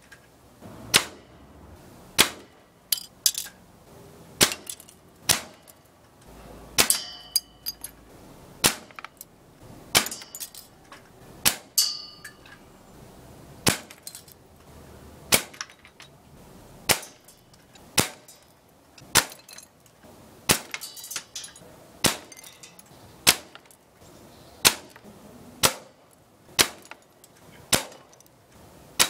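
Break-barrel .177 (4.5 mm) spring-piston air gun firing shot after shot, about one sharp crack a second, as pellets chip the plastic hand targets. Some shots leave a brief high ring. The reloading between shots is cut out, so the shots come in a quick, unbroken run.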